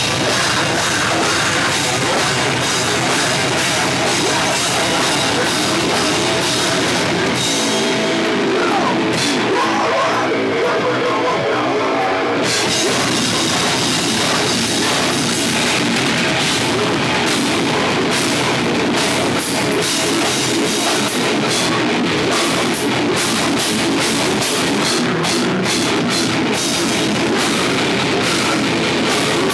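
Heavy metal band playing: distorted electric guitars over a full drum kit. About a quarter of the way in, the drums drop out for a few seconds and leave the guitars alone, then the whole band comes crashing back in.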